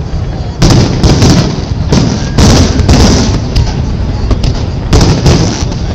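Aerial firework shells bursting in a rapid, uneven run of loud bangs, about ten in six seconds, over a continuous low rumble.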